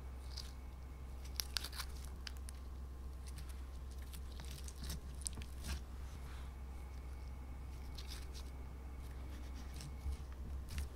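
Slime being squeezed and stretched by hand, giving off scattered soft clicks and sticky crackles over a steady low hum.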